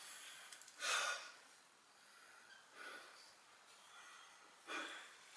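Faint breathing close to the microphone: two short, noisy exhales, one about a second in and one near the end, with quiet room tone between.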